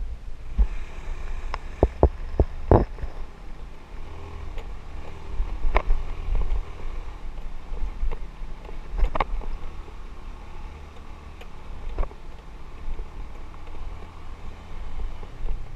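Motorbike riding over a rutted dirt road: a steady low rumble of engine and wind. Sharp knocks and rattles come as the bike jolts over bumps, several in quick succession about two to three seconds in, then single ones near six, nine and twelve seconds.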